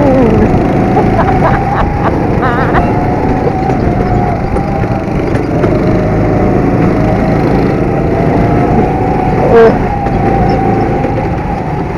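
Go-kart engines running at speed as the karts race, a steady rumble with the engine pitch wavering up and down with the throttle, dropping right at the start. A brief loud tone cuts in about nine and a half seconds in.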